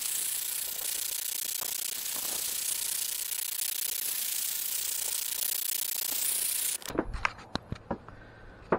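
Hose-fed gas torch running with a steady hiss as its flame chars the boards, cutting off suddenly near the end. A few sharp clicks and knocks follow as it is shut off and laid down on the wood.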